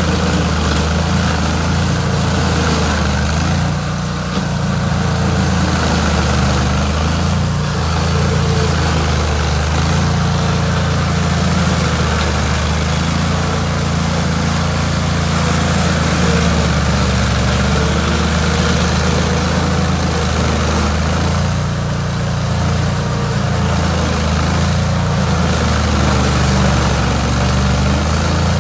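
An engine running steadily at low, even revs.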